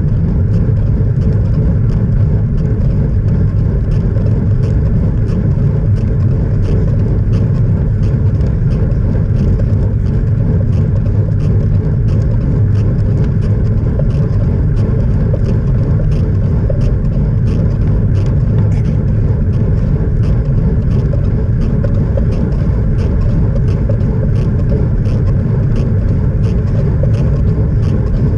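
Wind buffeting the microphone of a bicycle-mounted action camera at road-riding speed, mixed with tyre and road noise: a loud, steady low rush, with faint, evenly spaced ticks above it.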